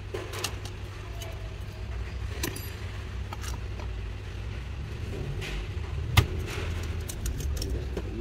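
Scattered light clicks and rattles of plastic dashboard parts and a wiring harness being handled with a plastic trim tool, with one sharper snap about six seconds in. A steady low hum runs underneath.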